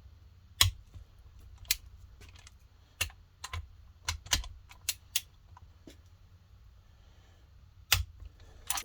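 Torque wrench tightening cylinder base bolts: about ten sharp, separate clicks spaced unevenly, some close together in pairs, with a longer gap before the last two near the end.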